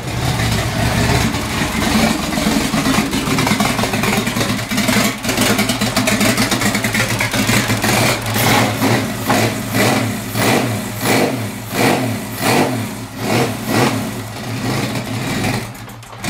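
Turbocharged BMW M50B30 stroker straight-six running for the first time after a rebuild, very loud because the exhaust comes straight off the turbo with no dump pipe fitted. It runs steadily at first, then from about halfway its note rises and falls in regular pulses, about three every two seconds. No weird sounds, making all the right noises.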